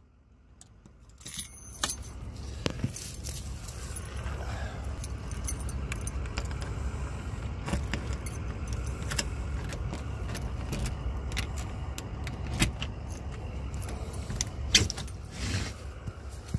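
Keys jangling and sharp clicks as a keypad lockbox on a doorknob is worked: buttons pressed, the key compartment released, the key turned in the knob lock and the door pushed open. A steady low rumble runs underneath.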